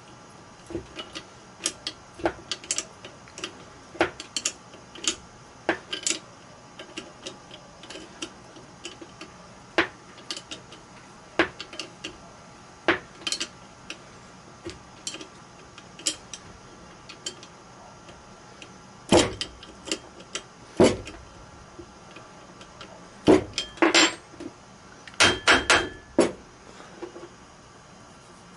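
Small metal wrench clicking and clinking on the end-bell bolts of an electric motor as they are tightened, a string of light ticks with a run of louder metal clinks about two-thirds of the way through.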